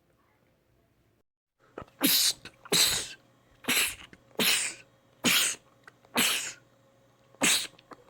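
A man sneezing over and over in quick succession: seven sharp sneezes a little under a second apart, starting about two seconds in.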